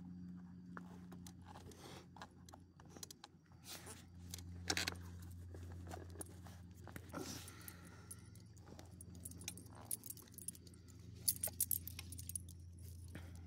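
Metal ID tags on dog collars jangling as the dogs move and sniff, in a series of short bright jingles that are loudest about a third of the way in and again near the end. A steady low hum runs underneath.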